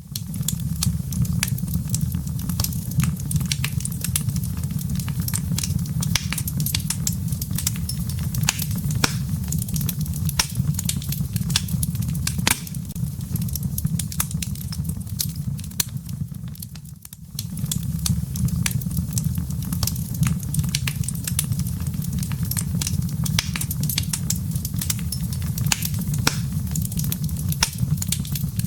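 Wood fire crackling in a fireplace: frequent sharp pops and snaps over a steady low rumble. It fades briefly about two-thirds through, then returns.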